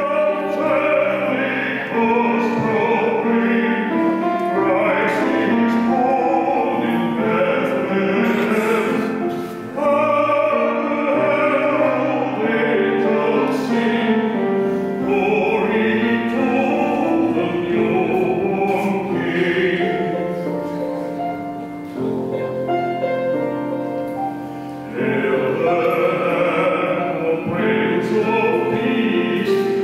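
Choir and solo voice singing a slow classical piece with grand piano accompaniment, in long held notes with brief pauses between phrases.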